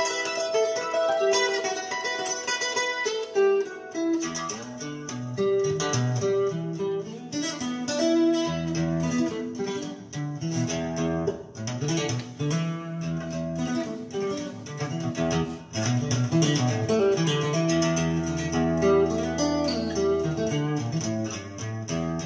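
Instrumental guitar music, plucked and strummed, played back through a 13JZ8 tube amplifier driving 1959 Phonola 10.2-inch radio speakers. At first only higher notes sound; lower notes join about four seconds in.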